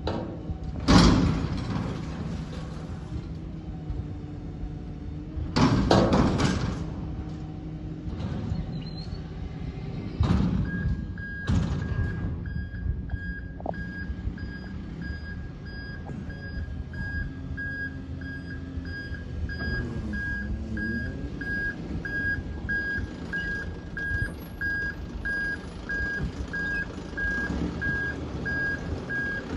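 Front-loader garbage truck with its engine running and three loud, noisy bursts in the first dozen seconds while its lift arms and bin are worked. About ten seconds in, its reversing alarm starts beeping steadily, about one and a half beeps a second.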